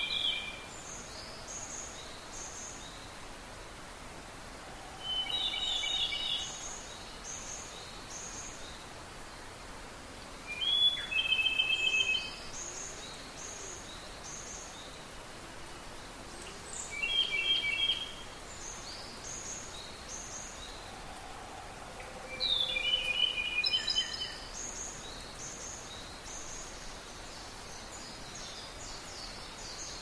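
Wild songbirds singing: one bird repeats a short phrase of quick, stacked notes about every five to six seconds, with fainter, higher calls from other birds in between over a steady background hiss.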